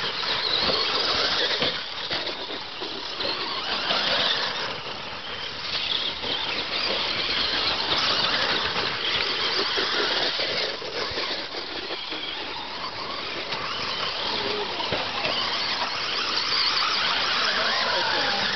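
RC stadium trucks racing on a dirt track: a high-pitched motor whine that swells and fades every second or two as the cars accelerate, brake and pass.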